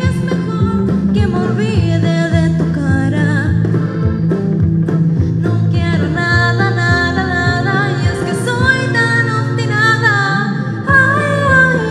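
A young woman singing a Spanish-language song live into a microphone over a karaoke backing track, holding long, wavering notes.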